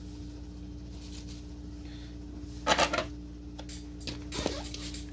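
A steady low hum, with a short clatter of clicks and rustles nearly three seconds in and a fainter click about a second and a half later.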